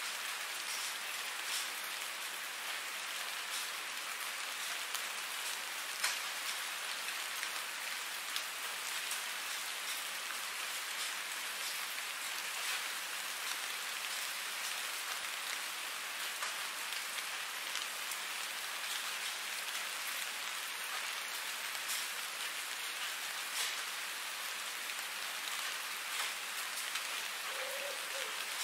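Steady rain falling on a surface, with now and then a sharper single drop hitting close by.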